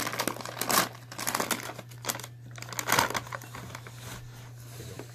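Paper bag rustling and crinkling as hands rummage inside it for a powdered donut, with louder crinkles just under a second in and about three seconds in.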